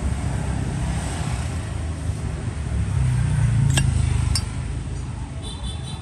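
Low rumble of road traffic that swells and then drops off shortly after halfway. Two sharp metallic clinks come about half a second apart near the peak.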